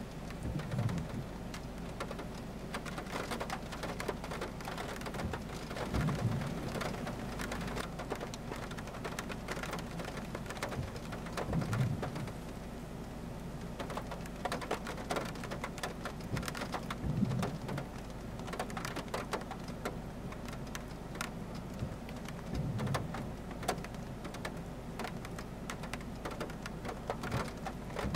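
Heavy rain falling steadily, with many sharp individual drop hits. A low rumble swells about every five to six seconds, louder than the rain.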